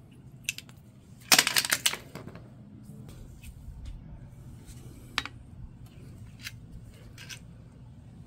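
Hand tools and small steel parts clinking against a bench vise, with a loud rattling clatter of metal about a second and a half in, then a few scattered single clicks.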